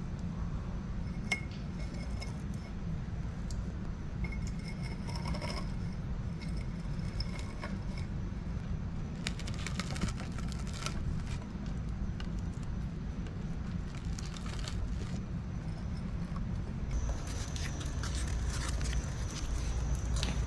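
Loose stripped copper wire rustling and clinking as it is packed into a crucible and pushed down with a wooden stick, over a steady low rumble.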